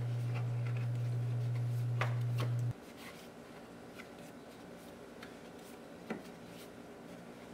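Scattered light clicks and ticks of metal as a fan clutch is twisted by hand onto the water pump pulley. A steady low hum runs underneath and cuts off abruptly about two and a half seconds in.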